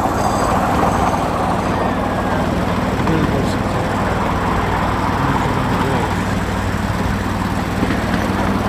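Miniature railway train running, heard from aboard: a steady low engine hum under a continuous rumbling noise.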